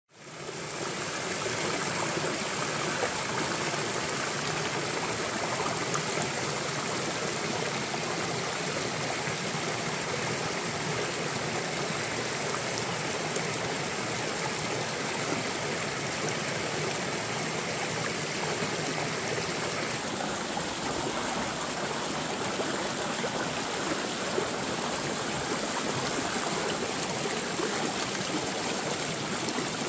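Shallow stream running over rocks, a steady rush of water close to the microphone.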